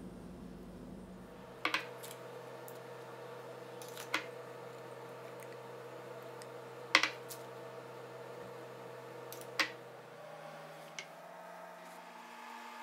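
Silicone spatula knocking against a glass jar while scooping out thick dulce de leche: five sharp clicks a couple of seconds apart, the loudest about halfway, over a faint steady hum.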